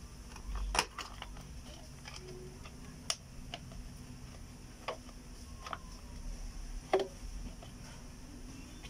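Scattered sharp plastic clicks and small handling ticks as wire-harness connectors are worked by hand at a refrigerator's inverter board, with four louder clicks spread a couple of seconds apart.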